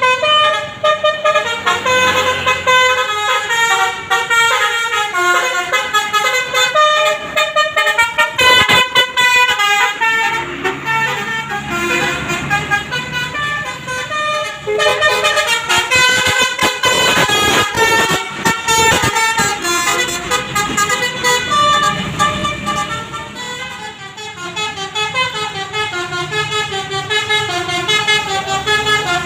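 Intercity bus's multi-tone 'basuri' telolet horn playing a fast melody of many short stepped notes.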